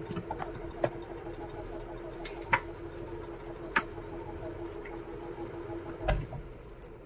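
Handling of a home theatre unit during a repair check: several sharp clicks and knocks, about four in all, over a faint steady hum that stops shortly before the end.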